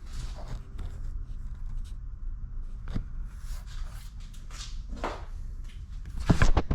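Scattered clicks and knocks of trunk-lid trim being pried off its retaining tabs with a trim removal tool, with a few sharper snaps near the end.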